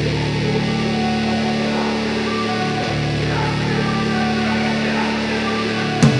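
Background music: a sustained, guitar-led instrumental passage with no vocals, with sharp hits and a heavier band section coming in near the end.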